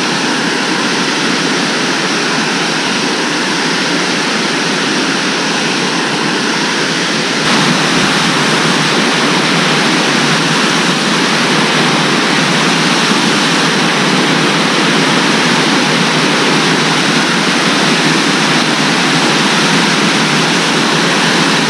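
Waterfall spilling over a low dam into the pool below: a loud, steady rush of falling water that gets a little louder about seven seconds in.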